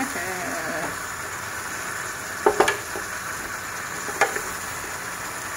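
Sayote (chayote) strips and sliced pork sizzling in a frying pan as a wooden spatula stirs them. Steady sizzle, with a few sharp knocks about two and a half seconds in and one near four seconds.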